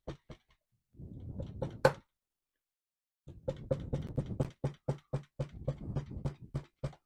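Bookbinder's hammer tapping along the spine of a text block of folded paper signatures clamped in a backing press: a run of light knocks, about four or five a second, with one sharper knock about two seconds in and a pause of about a second before the tapping resumes. This is backing: the blows fold the outer signatures over the backing boards to form the spine's shoulders.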